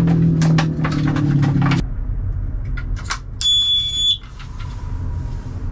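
Background music stops about two seconds in. After a few handling clicks, a battery-powered detector alarm sounds one loud, high-pitched beep of under a second as it is tested, showing the alarm works.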